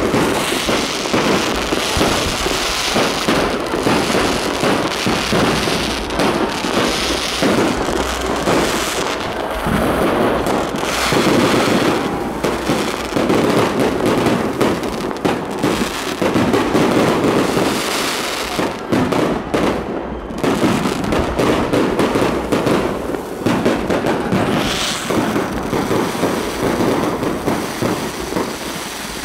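Aerial fireworks going off in a dense, continuous barrage of bangs and crackle, with no real pause.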